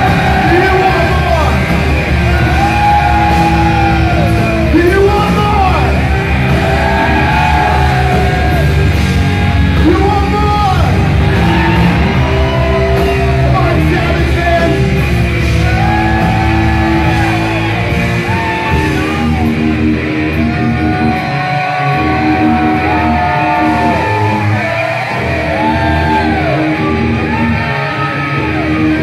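Rock music: a singer's voice, at times yelled, over electric guitar and a full band. The deep bass drops away about 18 seconds in while the singing and guitar carry on.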